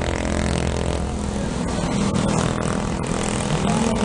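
Busy street traffic: motorcycle and car engines running as they pass.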